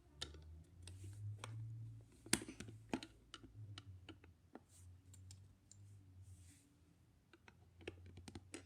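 Plastic Lego bricks clicking and tapping as they are picked up and pressed together: scattered sharp clicks, the loudest two about two and three seconds in, over a faint low hum.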